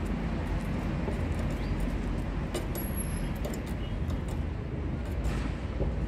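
Steady low rumbling background noise, with a few faint clicks scattered through it.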